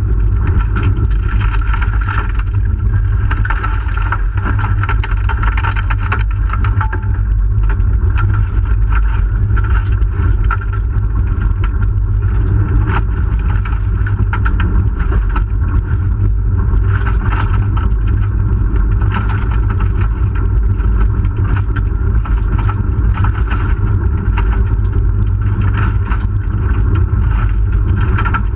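1997 Hyundai Excel's SOHC four-cylinder engine running hard under load, heard from inside the rally car's cabin, with steady road noise and many short knocks and ticks scattered through it.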